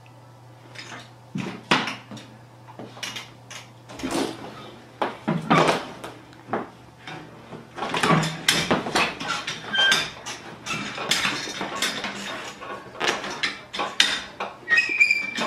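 A tiger cub tearing at an office chair: irregular knocks, scrapes and tearing as its claws and teeth work the seat's fabric and foam padding and jostle the chair on a hard floor.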